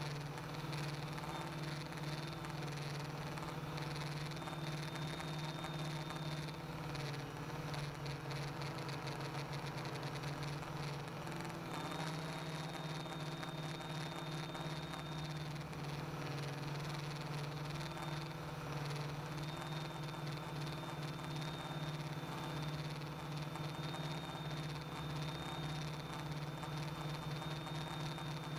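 Quadcopter's electric motors and propellers running steadily in flight, heard from on board the craft: an even hum with a thin high whine that comes and goes.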